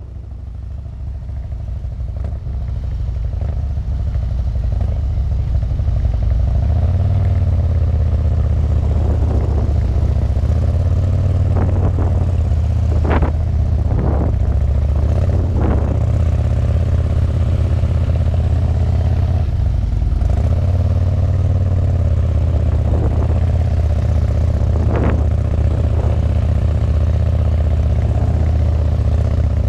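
Harley-Davidson touring motorcycle's V-twin engine running at low speed through tight slow turns, its pitch rising and falling with the throttle, heard from the bike's rear luggage rack. The sound fades in over the first few seconds, and a few brief knocks come through in the middle and again later on.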